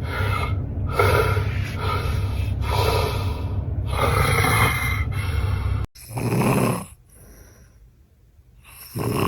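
A person snoring heavily, with loud snorting, gasping breaths about once a second over a steady low drone. After a sudden cut about six seconds in come two more loud snoring breaths, a few seconds apart.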